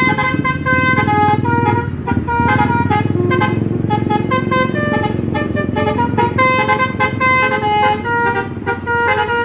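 Indonesian 'telolet' bus horn, a multi-tone musical horn, playing a quick tune of short notes that jump between pitches, with the bus's engine running underneath.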